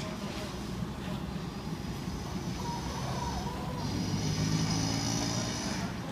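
Steady low rumble of a running vehicle engine, swelling a little in the second half with a faint high whine.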